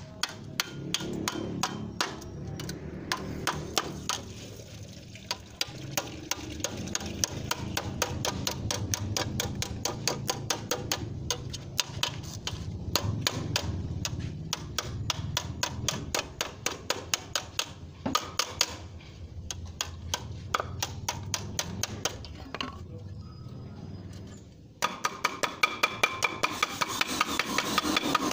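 Hammer tapping a thin metal gutter sheet down over the edge of a wooden block to fold its edge, a steady run of light strikes about three a second. The strikes grow louder and quicker in the last few seconds.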